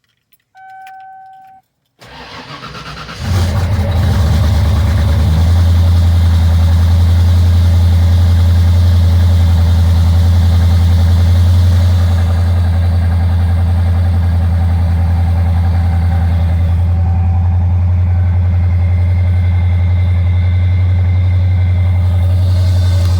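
The 1994 Ford Bronco's warning chime dings once. The starter then cranks for about a second before the small-block Ford V8 fires, and after a couple of seconds it settles into a steady idle.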